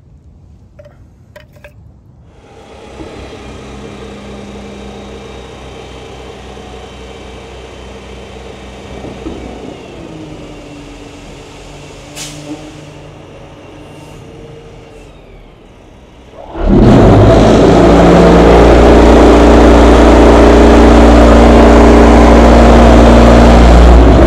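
Dump truck's diesel engine running while its raised bed unloads sand, starting a couple of seconds in. About two-thirds of the way through the engine speeds up sharply and runs very loud and steady.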